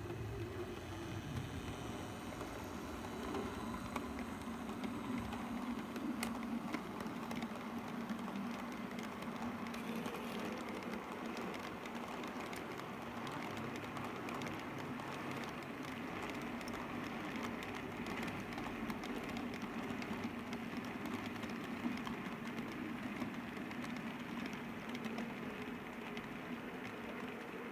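H0-scale model freight train of tank wagons rolling along the track: a steady running hum with scattered light clicks of the wheels over rail joints and turnouts.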